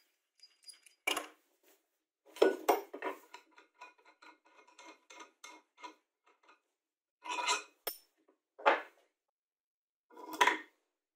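Metal and wooden workshop parts being handled on a bench: a clink, then a clatter and a run of light ticks that dies away, then a few short scrapes and knocks as plywood blocks are fitted onto a threaded steel rod.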